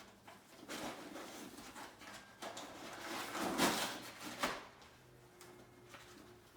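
A dog rustling and tearing at cardboard puzzle boxes, in irregular scraping bursts that are loudest about three and a half seconds in and then die down.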